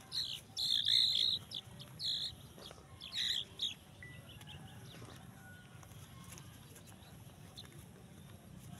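Bird chirping: a quick run of short, shrill chirps over the first four seconds, then only a faint steady low rumble.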